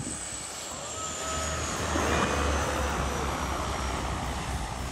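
Seaplane coming in to land on the water. Its engine noise swells to a peak about two seconds in, with a thin high whine that slowly falls in pitch.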